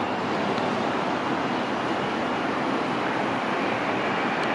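Boeing 767-300ER converted freighter's twin turbofan engines at takeoff thrust on the takeoff roll: a steady, even rushing roar.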